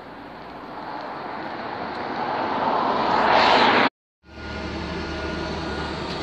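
Road noise swells as a vehicle draws near, then cuts off suddenly. A bus's engine and running noise follow, a steady low hum heard from inside the bus.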